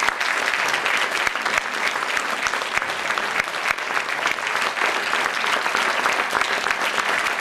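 Audience applauding steadily, many hands clapping at once without a break.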